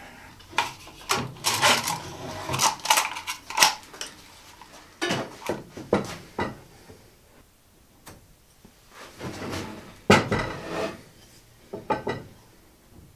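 Metal clamps and tools clinking and clanking as they are handled and set down on a table saw's steel top, with wooden knocks. The clicks come thick in the first few seconds, then a few more around five to six seconds and ten seconds in.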